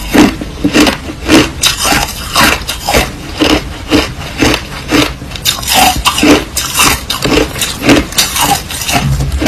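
Mouthful of white crushed ice being chewed close to the microphone: loud, crisp crunches in a steady rhythm of about two bites a second.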